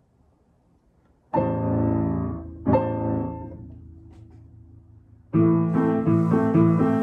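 Upright piano played by a young child: two chords struck about a second apart, left to ring and fade. Then, after a pause, a steady rhythmic run of repeated notes and chords begins about five seconds in.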